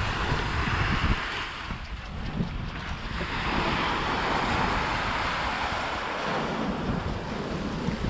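Sea surf washing onto the beach, swelling twice as waves break and run up, with wind buffeting the microphone as a low rumble.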